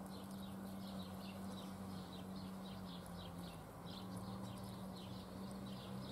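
Faint outdoor sound of short high chirps from an unseen small animal, repeated evenly about three times a second, over a steady low hum.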